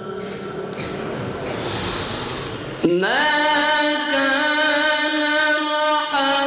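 A Quran reciter's solo chanted voice amplified through microphones: a breathy rushing noise for nearly three seconds, then about three seconds in the voice slides up into a long held melodic note of the recitation.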